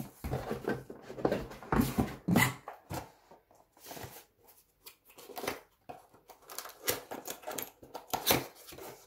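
Small white cardboard boxes being handled on a table: irregular knocks, taps and rustles, denser and louder in the first couple of seconds, then scattered sharp ticks.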